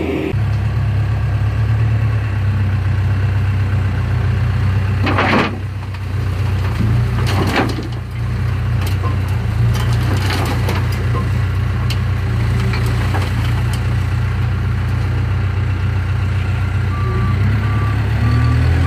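A loader's diesel engine running steadily and loud while its bucket dumps bark mulch into a pickup bed, with rustling and scattered ticks of falling wood chips midway through. Near the end a reversing beeper starts, beeping evenly.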